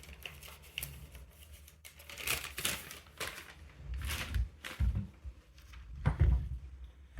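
Rustling and crinkling from bike parts and their packaging being handled, with dull knocks about five and six seconds in.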